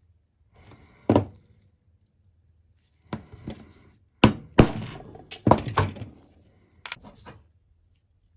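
A series of irregular sharp knocks and clunks, about nine in all: a single one about a second in, a loud cluster in the middle, and two lighter taps near the end. They sound like hand work on hard parts.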